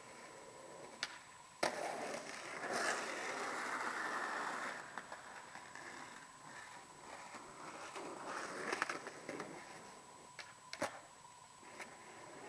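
Skateboard wheels rolling on concrete, with sharp clacks of the board striking the ground. One loud clack comes a little over a second and a half in and is followed by about three seconds of rolling. After a quieter stretch, a second spell of rolling leads into another loud clack near the end.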